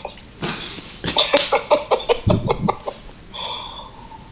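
A person laughing hard in quick cackling bursts, followed near the end by a short held voiced sound.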